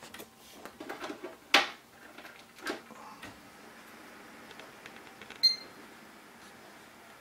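A test-bench PC being powered on: clicks and knocks, the sharpest about one and a half seconds in, then the faint steady whir of cooling fans. About five and a half seconds in comes a single short high beep, the motherboard's power-on self-test beep.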